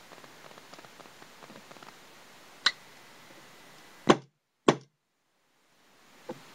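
Automag Classic .68-calibre paintball marker fired on air alone, giving three sharp pops, the last two loudest and about half a second apart. The recording briefly cuts out after them, and a faint click follows near the end.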